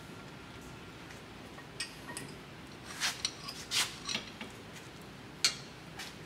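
Steel brake rotor being worked onto the hub and wheel studs of a rear axle: a handful of separate light metallic clinks, the sharpest near the end.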